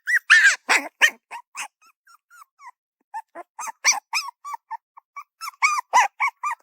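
Puppy yelping in a series of short, high-pitched yips, about three a second in the second half, with a few harsher, noisier barks near the start.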